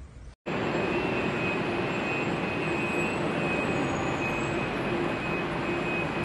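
Loud, steady machine noise with a high, even whine and a lower hum. It cuts in suddenly after a brief silence about half a second in.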